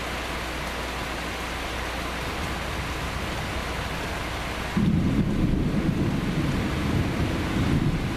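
Steady rain, then about five seconds in a loud rumble of thunder breaks in suddenly and rolls on, deep and uneven, through the end.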